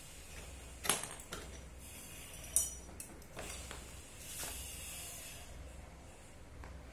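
Light metal clinks and knocks as a motorcycle's front axle is drawn out and the wheel drops free of the fork: two sharp clinks, about a second in and again a little later, among fainter taps.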